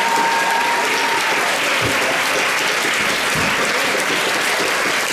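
Large audience applauding steadily, with a held shrill cheer from the crowd fading out in the first second or so.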